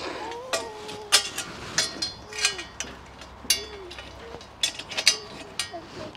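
Bolt and hardware clicking and clinking against the garden table's frame while a bolt is being fitted through its holes: a string of irregular sharp clicks.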